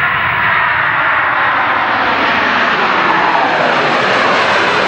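Jet airliner's engines running loud and steady as the plane passes close, their pitch falling slowly.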